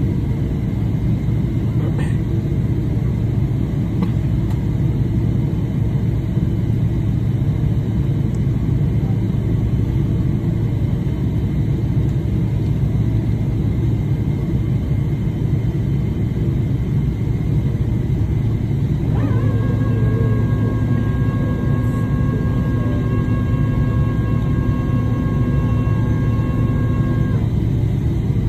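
Jet airliner cabin noise while taxiing after landing: a steady low rumble from the engines and air systems. About two-thirds of the way in, a steady whine of several tones joins it and cuts off shortly before the end.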